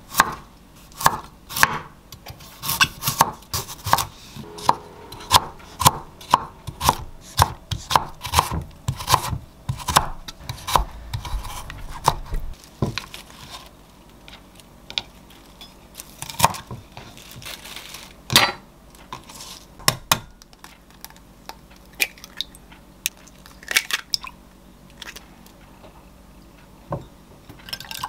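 Chef's knife cutting carrot on a wooden cutting board, steady chops about two a second for the first dozen seconds. Over the second half it slows to a few scattered single cuts and knocks.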